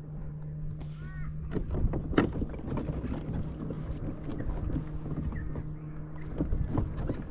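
Steady low hum of a boat motor across the water that stops near the end, over wind rumble on the microphone and a few sharp knocks.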